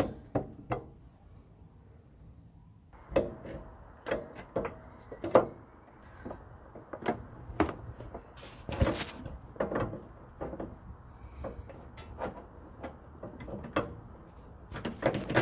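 Irregular metal clinks and knocks as the long through-bolt of a VW T3 upper control arm is worked into its bushings and eccentric washers and fiddled into line.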